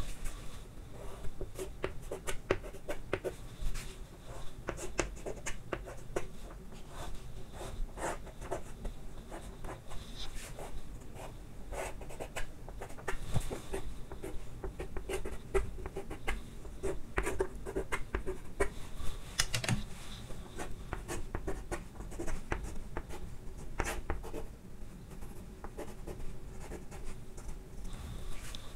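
Chalk drawing on a chalkboard: many short scraping strokes and taps, irregular, as dimension lines are ruled onto a technical drawing.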